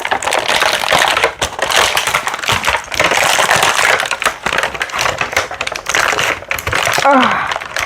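Stiff plastic packaging crackling and clicking as a toy figure is pried and tugged out of its tray.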